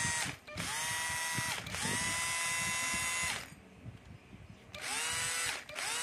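Cordless drill-driver run with no load in short trigger pulls, each spinning up with a rising whine, holding a steady motor whine and then stopping. There are about five runs with a pause in the middle, and the last two are lower in pitch as the drill is tried at fast and slow speed.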